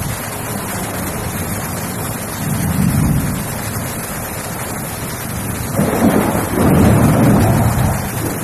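Heavy rain in strong wind, a steady rushing noise with gusts buffeting the microphone, once about two and a half seconds in and again, louder, from about six seconds in until near the end.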